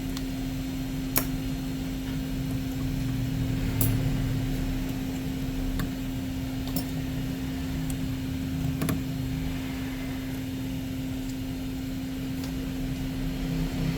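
Steady low machine hum with one even tone, with a few light clicks scattered through it.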